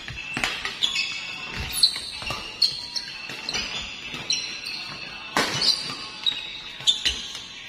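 Badminton rally: rackets striking the shuttlecock in a series of sharp hits about a second or more apart, with short high squeaks of court shoes on the floor between them.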